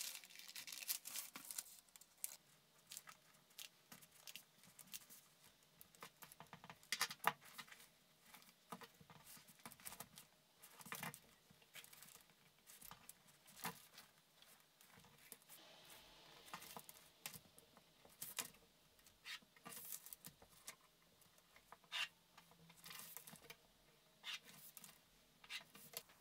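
Scattered light rustles and crackles of pattern paper being handled and cut with scissors, with soft snips.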